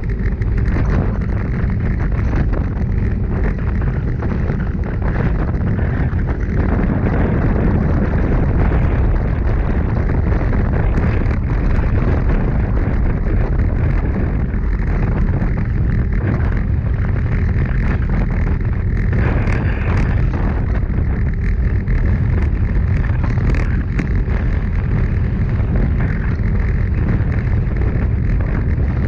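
Steady heavy wind rush buffeting the camera's microphone on a road bike ridden at about 45 km/h.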